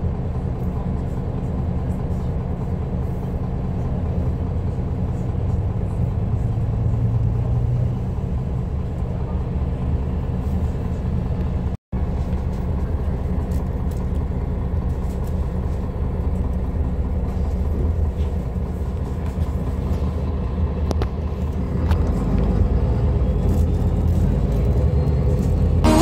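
A MAN NL323F city bus's diesel engine running with a steady low rumble. The sound cuts out for a split second about halfway through. The rumble grows louder near the end.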